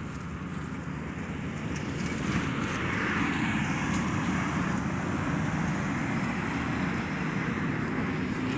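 A motor engine running steadily, growing louder over the first two or three seconds and then holding level.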